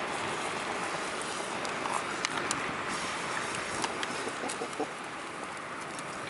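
Wood campfire crackling: scattered sharp pops and snaps over a steady hiss.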